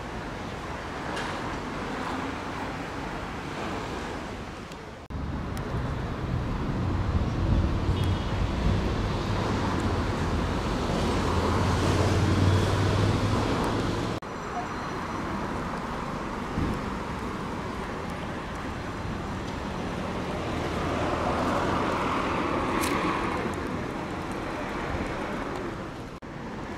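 Cercanías Madrid electric commuter train moving through a station: a steady rumble with a low hum, loudest in the middle, and abrupt changes about five and fourteen seconds in.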